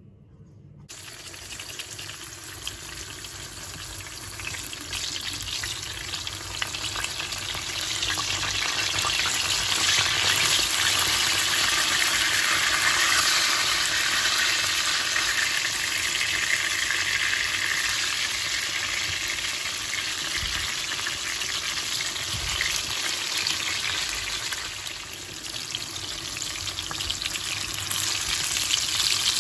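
Food frying in hot oil in a pan, a steady sizzle. It starts abruptly about a second in, grows louder, dips briefly near the end and then picks up again.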